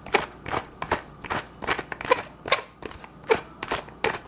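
Dried herbs crumbled and rubbed between fingertips over a bowl: a dry, crackling rub repeating about two or three times a second.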